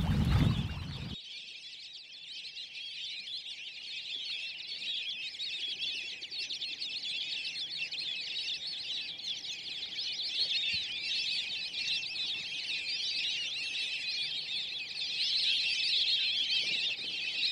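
A dense chorus of many birds chirping and calling at once, a steady high-pitched twittering that swells a little near the end.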